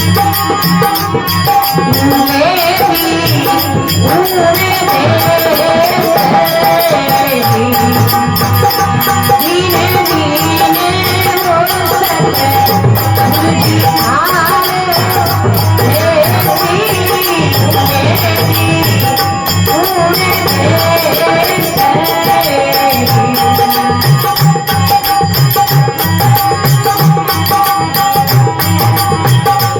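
Rajasthani devotional bhajan: a woman's singing voice carries a winding melody over a steady held drone tone. Rattles and a hand drum keep a steady beat underneath.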